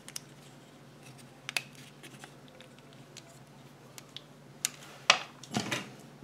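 Scattered small clicks and taps as hands pull chocolate shell pieces off a Kinder Surprise egg's yellow plastic capsule and turn the capsule in the fingers, with a few sharper clicks about a second before the end.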